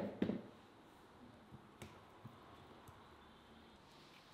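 Two dull knocks near the start as raw potato wedges are handled in a bowl on a wooden table, then a few faint clicks as the wedges shift against each other and the bowl.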